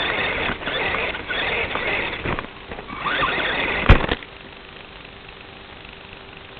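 RC car running, an uneven mechanical rattle and whine picked up by its low-quality onboard FPV microphone. About four seconds in there is a loud pop, and then only a steady hiss of static with a faint hum.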